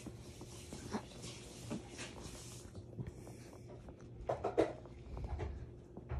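Soft rustling of bedding and light knocks as a baby crawls and rolls against pillows, with a brief voice-like sound about four and a half seconds in.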